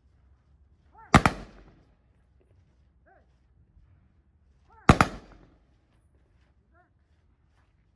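Two rifle volleys of a funeral honors salute, nearly four seconds apart. Each is a single sharp crack with a short echo.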